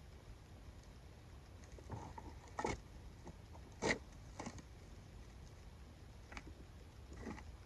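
Faint, scattered clicks and rustles, six or so, the two sharpest a little over a second apart, over a quiet background.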